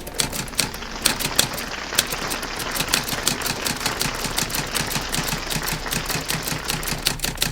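Typewriter keys being struck in a quick, irregular run of clacks, several a second.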